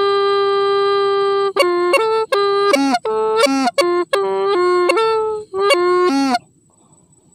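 Hmong raj lev les bamboo flute played solo in a bright tone. A long held note gives way, about a second and a half in, to a quick phrase of short notes, several of them ending in a downward slide. The playing stops about six and a half seconds in.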